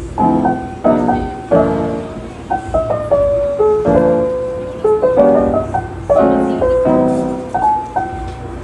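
Background piano music: chords and single notes struck one after another and left to ring.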